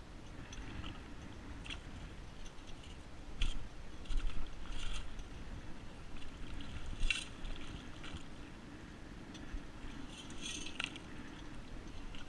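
Digging in wet sand and stones: irregular short scrapes and clinks, the loudest about halfway through and again near the end, over a steady low rumble.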